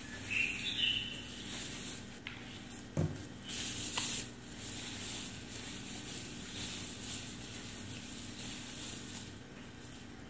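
Gloved hands rubbing and working a liquid hair-straightening product through wet hair: soft rustling and hissing, with a short squeak near the start and a dull knock about three seconds in.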